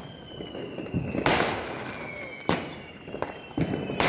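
Aerial fireworks going off: a series of sharp bangs roughly a second apart, each followed by a short decaying rumble as the shells burst.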